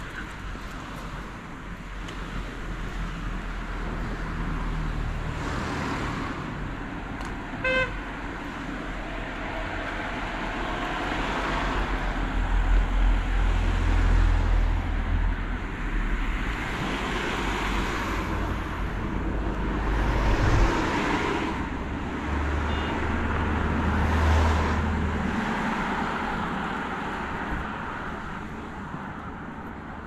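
Road traffic passing close by: several motor vehicles go by one after another, each swelling and fading, the loudest near the middle. A short horn toot sounds about eight seconds in.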